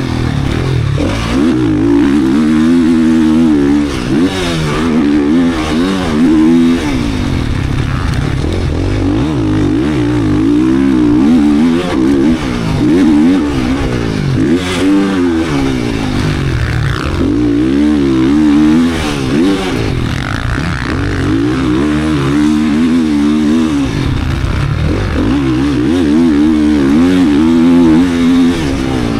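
GasGas 450 motocross bike's four-stroke single-cylinder race engine being ridden hard, its pitch climbing and dropping again and again as the throttle is opened and shut.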